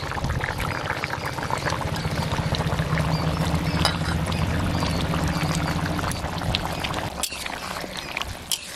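Jackfruit-and-potato curry bubbling and spluttering in the pan as fried paneer pieces are added and stirred in, over a steady low hum that stops about seven seconds in.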